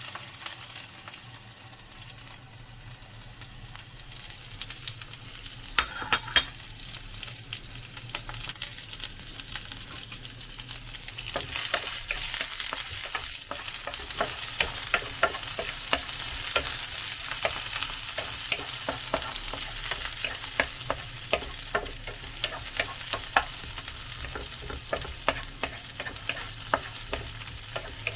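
Chopped onions sautéing in hot cooking oil in a pan, sizzling, with a spatula stirring and clicking against the pan. The sizzle grows louder about eleven seconds in, and the clicks come thick and fast after that.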